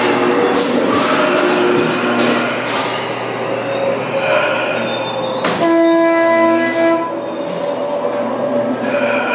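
Funhouse sound effects over a steady noisy background. About halfway through comes a loud horn blast, about a second and a half long, together with a burst of hiss.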